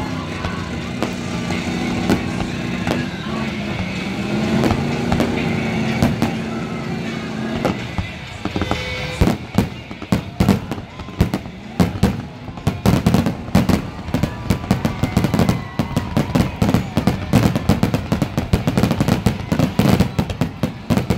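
Aerial fireworks display: shells bursting with bangs and crackles, coming thick and fast in a rapid barrage from about eight seconds in. Music with long held notes plays through the first several seconds.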